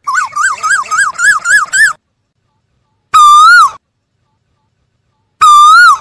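Asian koel calling: a quick run of about seven rising, wavering notes in the first two seconds, then two loud single notes, each rising then falling, a couple of seconds apart.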